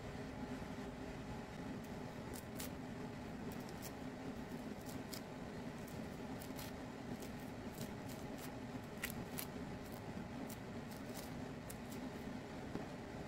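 A tangerine peel being torn away by hand: an irregular run of small, crisp crackles and snaps, over a steady low hum.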